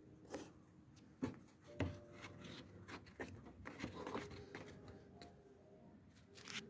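A plastic headlight dust cap being pressed and twisted onto the rear of a Peugeot 308 headlight housing by hand: faint rubbing and handling noise with several sharp plastic clicks and knocks, the loudest in the first two seconds.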